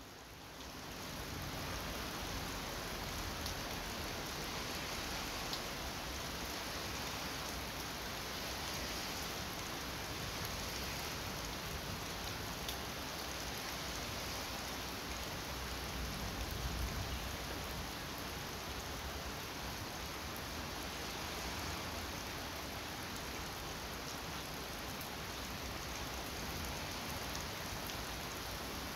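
Rain falling steadily in a thunderstorm, an even hiss that fades up over the first second or two and swells slightly a little past halfway.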